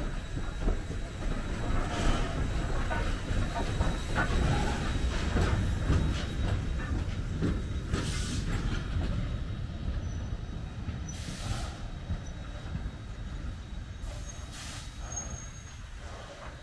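Steam locomotive rolling slowly past at close range: a low rumble with irregular clanks of running gear and wheels on the rails, and short hisses of steam about eight, eleven and fourteen and a half seconds in. Brief high wheel squeals come through, and the sound fades over the second half as the engine moves away.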